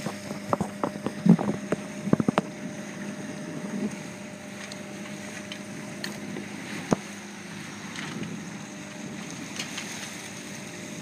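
A sailboat's engine running with a steady, even hum as the boat motors along, over wind and water noise. A few sharp knocks come in the first two seconds, and a single click about seven seconds in.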